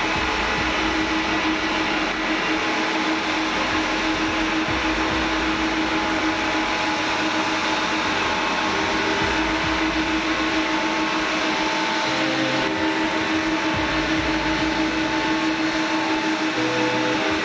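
Jet airliner engines running steadily: a constant rush of noise with a steady whine over it.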